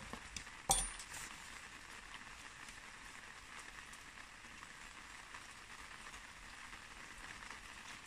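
Faint crackling and scratching of a small metal root rake combing through a Japanese red pine seedling's moss-covered root ball, with soil crumbs dropping onto an enamel basin. One sharp click about a second in.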